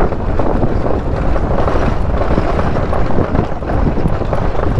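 Bajaj Pulsar 220 motorcycle riding over a rough, stony dirt track: a steady rumble and rattle of tyres and chassis on loose rocks, mixed with wind buffeting the camera microphone.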